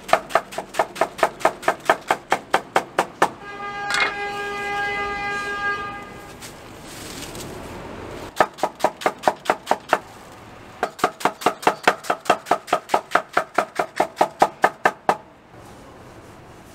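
Kitchen knife rapidly shredding cabbage on a wooden cutting board, about five chops a second, in two runs. Between the runs a steady horn tone sounds for about two seconds, followed by a soft rustling.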